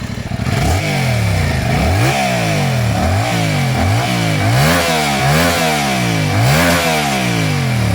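Yamaha Tracer 7 GT's CP2 parallel-twin engine, with its 270-degree crossplane crankshaft, idling and then revved in a string of quick throttle blips, each rising and falling back. It settles to idle near the end.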